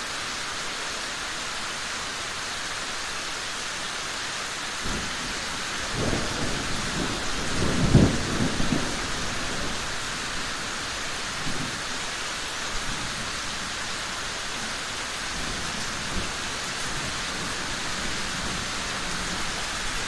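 Steady rain falling, with rolling thunder: a low rumble builds about five seconds in, peaks around eight seconds, and a weaker roll follows a few seconds later.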